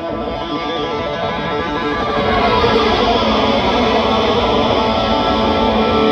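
Live rock music: distorted electric guitar ringing out sustained notes, growing steadily louder.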